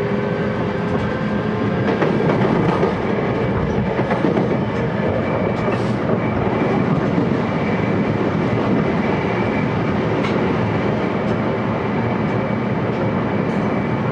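Steady running noise of a JR West 223 series 1000 electric multiple unit heard from inside its motor car: wheels rumbling on the rails at speed, with scattered clicks from rail joints.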